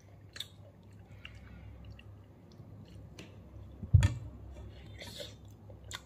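Wet chewing and mouth smacks of someone eating soft ripe mango, with small scattered clicks. A single loud thump about four seconds in.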